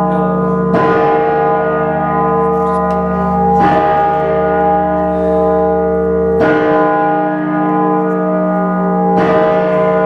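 Great Peter, York Minster's big hour bell, swinging and striking four times, a stroke about every three seconds, each stroke's deep ringing hum running on into the next.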